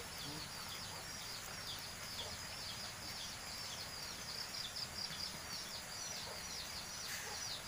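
Small birds chirping continuously: a rapid series of short, high, downward-sliding chirps over a steady outdoor background hiss.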